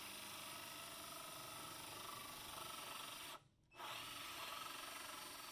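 Cordless drill spinning a hole saw through painted plywood, running steadily. It cuts out for a moment a little over three seconds in, then starts again.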